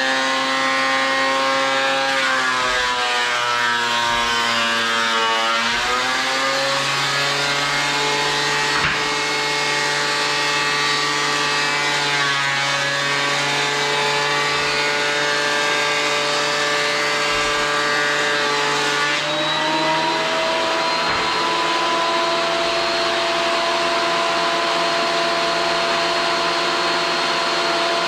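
Electric power tool motor running steadily, its pitch sagging and recovering a few seconds in as it comes under load, then stepping to a new steady pitch about two-thirds of the way through.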